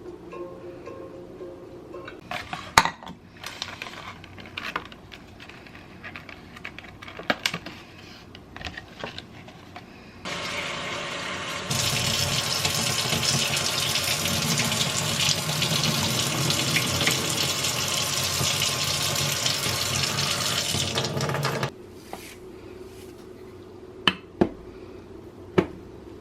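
Kitchen tap running into a sink for about ten seconds, a steady rush of water that gets louder shortly after it starts and cuts off suddenly. Scattered light clicks and knocks come before it, and a few sharp knocks follow near the end.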